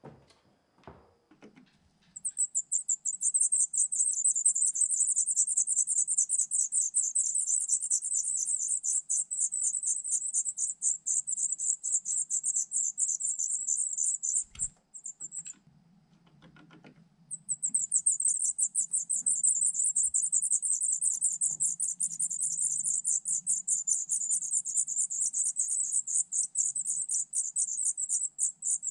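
Songbird nestlings begging at the nest: a high-pitched, rapidly pulsing call that breaks off with a thump about halfway through, then starts up again a couple of seconds later. A few faint knocks at the very start.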